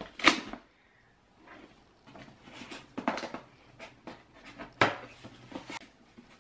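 Scissors cutting the packing tape on a cardboard box, and the box flaps being worked open: irregular sharp snaps and scrapes with rustling in between, the loudest just after the start.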